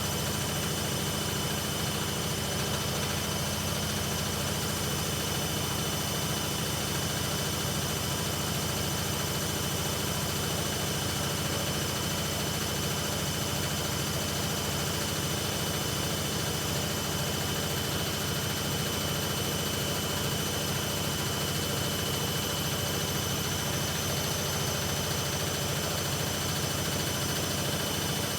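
Hoover Ecologic Computer washing machine spinning steadily on its 1300 rpm spin-only programme: an even drum rumble with a constant motor whine and no rise or fall in speed.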